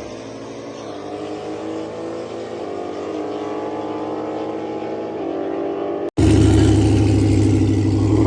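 Car engine running, its pitch stepping up a few times as it pulls. About six seconds in the sound cuts out for an instant and jumps to a louder, steadier engine sound with a deep low hum.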